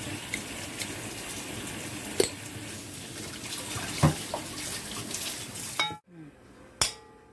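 Water running steadily, with two sharp knocks of a utensil or pot. It cuts off abruptly about six seconds in, and one more knock follows.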